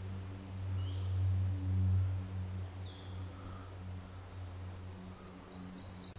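A low, steady hum throughout, with a wild bird giving a short downward-slurred chirp twice, about two seconds apart.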